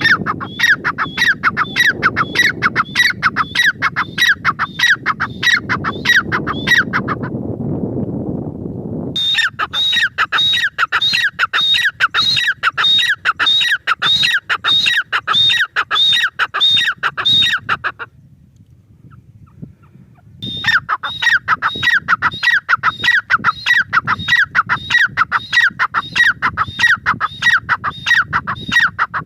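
Grey francolin (teetar) calling, a fast string of sharp repeated notes, a few a second, in three long runs with short breaks. A low background rumble lies under the first run.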